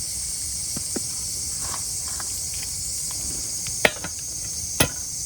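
A steady, high-pitched insect chorus of crickets, with a few faint clicks and two sharp knocks near the end, about four and five seconds in.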